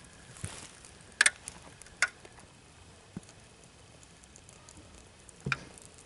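Small kindling fire crackling, with a faint hiss and a few sharp pops: a double pop just over a second in, another at about two seconds, and one near the end.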